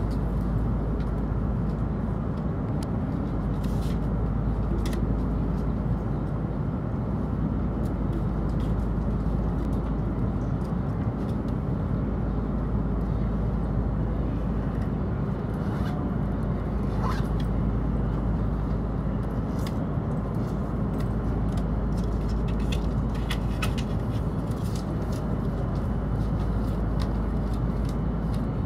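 Steady low hum inside a Hokuriku Shinkansen carriage standing at the platform, with a few faint clicks.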